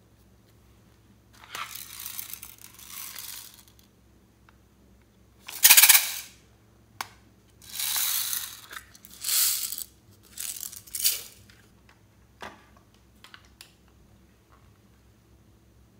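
Slime being mixed with small hard add-ins: five bursts of crackling and rattling, the loudest about six seconds in, followed by a few sharp clicks.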